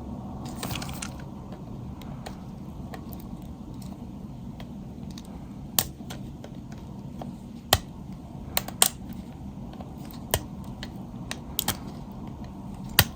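Scattered sharp clicks and taps of a tool against the plastic parts of a mobile phone's case as it is pried apart by hand, about eight over the last seven seconds, over a steady low background hum.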